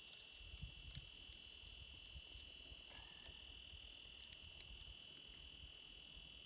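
Near silence: a faint, steady high-pitched tone, with a few faint clicks.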